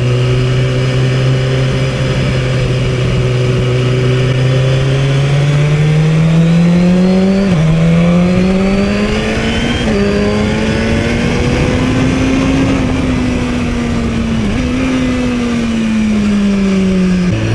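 Motorcycle engine pulling hard through the gears: a steady drone that climbs in pitch, drops sharply twice at the upshifts, climbs again, then eases off with one brief blip, over a rush of wind on the helmet.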